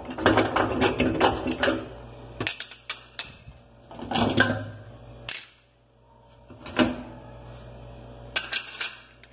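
Metal burner caps and parts of a gas stove being lifted off and set down by hand, clinking and clattering in several bursts, the busiest in the first two seconds.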